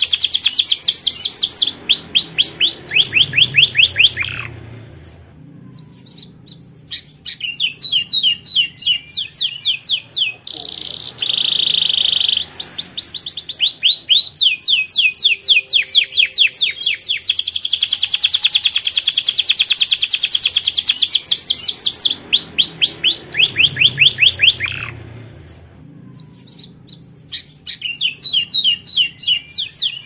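Domestic canary singing: long, fast trills of rapidly repeated sweeping notes strung into phrases, with one held whistled note near the middle and two brief pauses.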